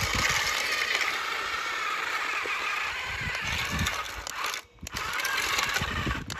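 Toy remote-control bulldozer's small electric motor and gearbox whining steadily as it drives forward along the pool edge. The whine breaks off briefly about three-quarters of the way in, then resumes.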